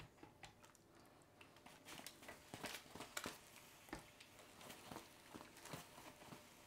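Near silence, with faint, irregular soft taps and dabs of a pastry brush brushing bun glaze onto freshly baked hot cross buns.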